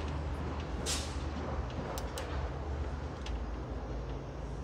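A metal-cased DVD player being lifted and handled: a brief scrape about a second in, then a few light clicks near two seconds and once more just after three, over a steady low hum.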